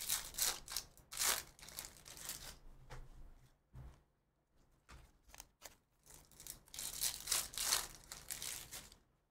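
Foil trading-card pack wrappers being torn open and crinkled by hand, in two bouts: one at the start and another near the end, with light card handling between them.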